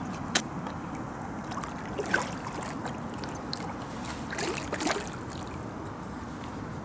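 A stingray shot on a slingshot fishing line stirs and splashes at the water's surface: a few short, sharp splashes over a steady wash of water noise.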